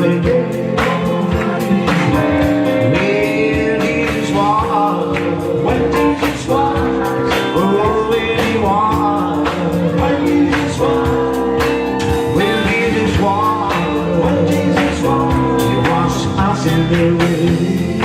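Gospel song with singing over instrumental backing and a steady beat.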